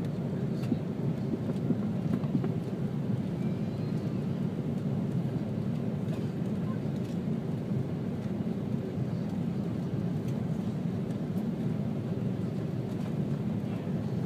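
Airbus A330-200 cabin noise on final approach, heard at a window seat over the wing: a steady low rumble of engines and airflow with flaps and landing gear extended.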